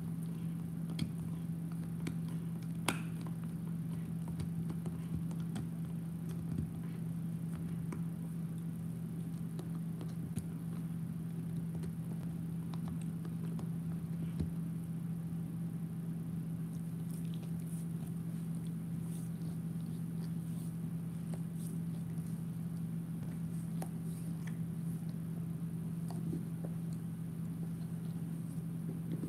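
Bernese Mountain Dog gnawing on a long chew, with scattered small clicks and crackles of teeth on the chew, a sharper click about three seconds in, over a steady low hum.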